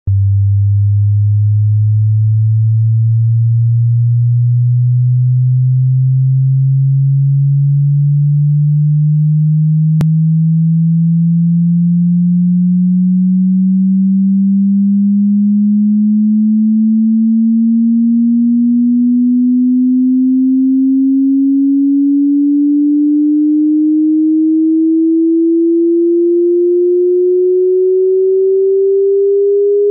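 A single loud, pure electronic tone that rises slowly and steadily in pitch, from a low hum to a mid-range tone.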